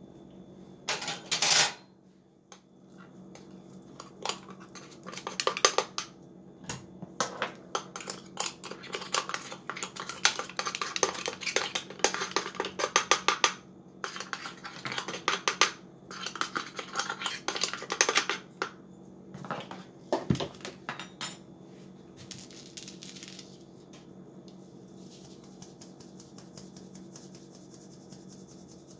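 Fine stainless steel mesh sieve of ground spice being shaken and tapped to sift it: rapid metallic rattling and tapping in long runs that stop about 21 seconds in, followed by a faint soft rustle.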